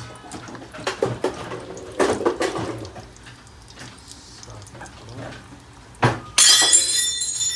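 Samosas sizzling as they deep-fry in a wok of hot oil. Near the end comes a sharp knock, then a glass item shattering on a tiled floor with a bright ringing spray of pieces. This is the loudest sound.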